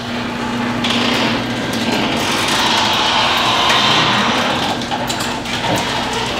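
Sectional garage door being raised by its electric opener: the motor runs steadily while the door panels roll up along their tracks.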